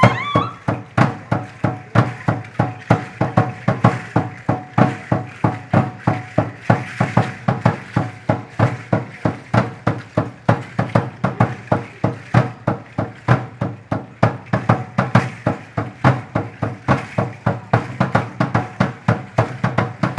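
Aztec-style dance drumming: a drum struck in a steady, even beat of about three strikes a second. A high held tone bends upward and stops about half a second in.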